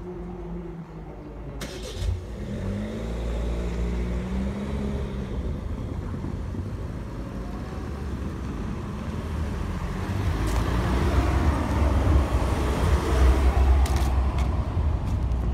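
Cars driving off over a level crossing as the barriers lift: engines pulling away with rising pitch, then tyre and engine noise that swells as a car passes close, loudest near the end.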